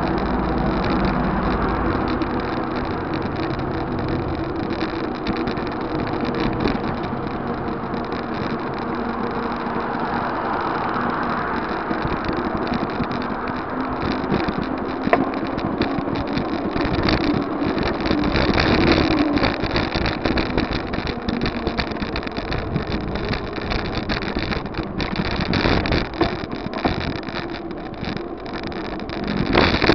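Wind buffeting the microphone of a bike-mounted camera while riding: a continuous rushing noise with a low rumble, joined from about halfway through by frequent knocks and rattles as the bike rolls over the road.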